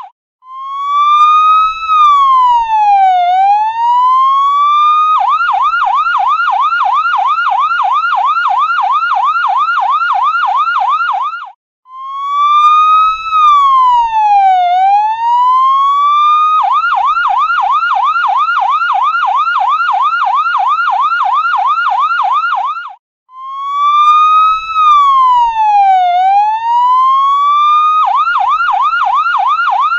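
Electronic ambulance siren cycling between modes: a slow wail that rises, dips and climbs again over about four seconds, then a rapid warbling yelp for about six seconds, with a short break before each wail. The cycle repeats three times.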